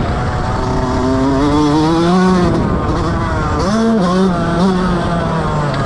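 Motocross bike engine revving through the gears: the pitch climbs for about two seconds and drops off, then picks up again, with a quick rise and fall around four seconds in.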